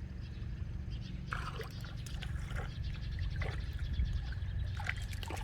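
Scattered small water splashes and drips, a few seconds apart, over a steady low rumble.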